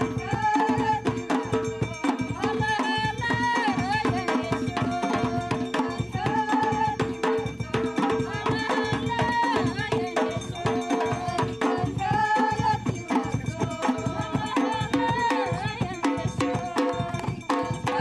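Background music with a steady drum beat, a held drone and a wavering melody line.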